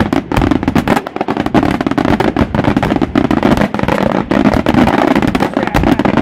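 Fireworks: a dense, rapid string of aerial shell bursts and bangs, overlapping almost without a break.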